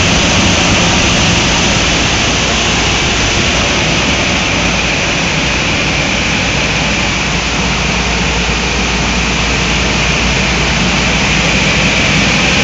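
Preheat blowers of a Vitronics Soltec DeltaMax 6723 wave soldering machine running, a loud, steady rush of air over a low hum.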